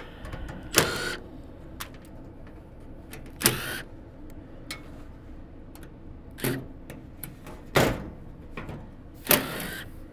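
Milwaukee cordless driver run in five short bursts, spinning screws out of a sheet-metal access panel, with small metal clicks and rattles in between.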